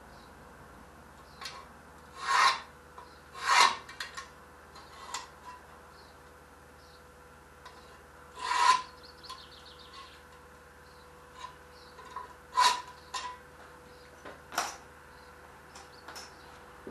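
Separate hand-tool scraping strokes on thin iron sheet (half-millimetre iron plate), each about half a second long: five louder strokes with fainter, shorter scrapes between them.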